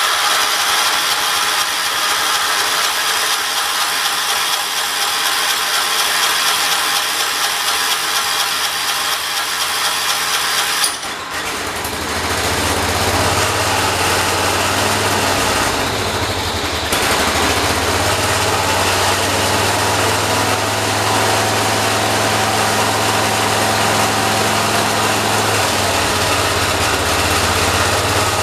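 Kohler engine of a John Deere 212 garden tractor running just after starting, at a high, busy pitch. About eleven seconds in its note drops and it settles into a steadier, lower run. This is during carburetor tuning on an engine that would not run unless choked.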